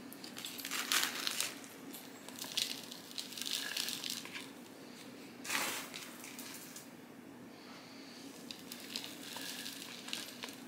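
Chunky homemade potting mix, with charcoal in it, being scooped and pressed into a clear plastic pot around a cutting's roots, in about four short bouts of handling.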